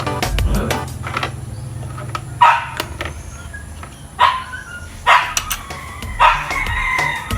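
A dog barking, a handful of short barks about a second or so apart.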